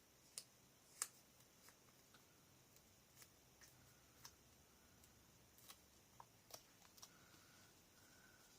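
Near silence broken by scattered light clicks and taps, about a dozen, the loudest about a second in: paper and chipboard embellishments being handled and pressed down on a scrapbook layout.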